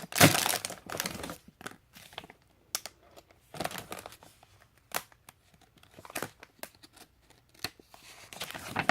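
A plastic Lego parts bag being torn open and crinkled, with a loud rip just after the start, then scattered short crackles and clicks.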